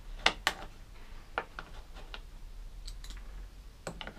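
Sharp clicks and taps of a hand tool against the plastic air filter cover of a lawnmower engine as a socket is tried on the cover's fastener: two loud clicks near the start, then scattered lighter ones.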